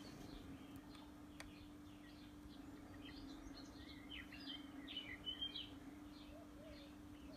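Birds chirping and singing faintly, with a busier run of louder chirps about four to five and a half seconds in, over a steady low hum.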